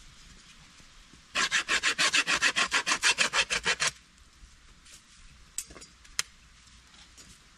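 Hand saw cutting wood: a quick, even run of short strokes for about two and a half seconds, then a couple of light clicks.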